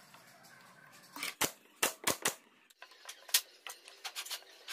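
Handling knocks from loose pine frame strips on a workbench: a few sharp wooden knocks about a second and a half in, then lighter taps and clicks, one sharper click near the end.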